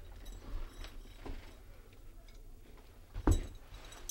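A few faint ticks and rustles over a steady low hum, then a single loud thump about three seconds in.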